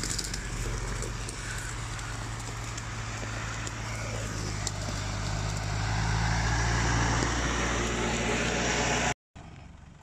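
Off-road pickup truck engine running with a steady low drone under a noisy rush, growing louder over several seconds, then cutting off abruptly near the end.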